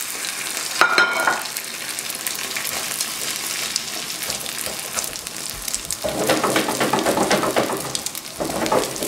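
Spanish potato omelette (tortilla de patatas) frying in olive oil in a non-stick pan, a steady crackling sizzle as its second side cooks after the flip. A brief ringing clink about a second in, and the sizzle grows louder and rougher for a couple of seconds near the end.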